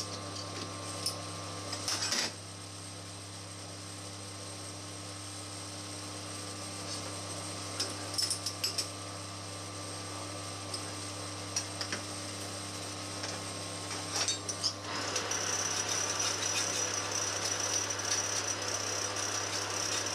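Metal lathe: scattered clicks and knocks as the three-jaw chuck and its small workpiece are handled by hand, then from about three-quarters of the way in the lathe runs and a hand file rasps against the spinning part, a steady, louder hiss to the end.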